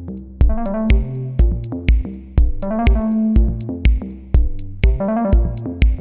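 Background electronic music with a steady drum-machine beat, about two kick-drum hits a second, with synthesizer notes over it.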